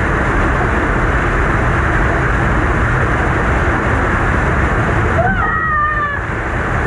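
Loud, steady rush of a river waterfall pouring close to the microphone. A brief high, wavering squeal cuts through about five seconds in.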